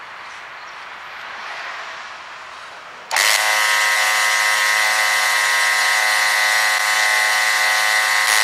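Small 12-volt electric oil transfer pump switched on about three seconds in and running with a steady high-pitched whine as it pumps gear oil into the gearbox. Before it starts there is only faint background noise.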